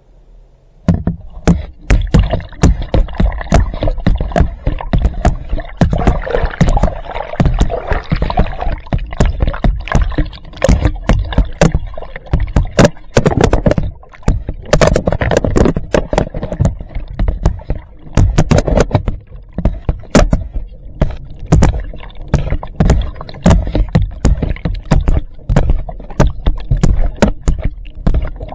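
Water splashing and sloshing close to the microphone, full of irregular sharp knocks and splats. It starts abruptly about a second in.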